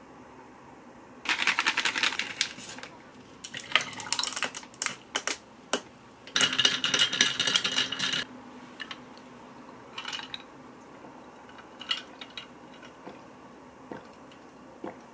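Ice rattling and clinking against a tall glass as a drink is mixed and stirred with a thin stick, in three spells over the first eight seconds, then a few faint taps.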